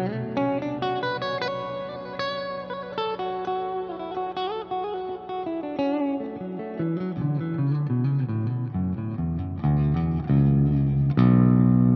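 Seven-string electric guitar (Ibanez Axion Label RGD71ALMS with Fluence Modern Ceramic pickups) playing a quick run of picked single notes that works its way down into the low register. About 11 s in, a low chord is struck and left to ring.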